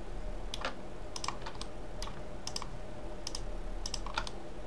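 Computer mouse buttons and keyboard keys clicking irregularly, a few clicks a second, some in quick pairs, over a low steady hum.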